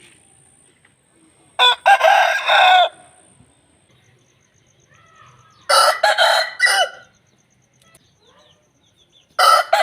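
Aseel roosters crowing: three crows of about a second each, roughly four seconds apart, the last starting near the end.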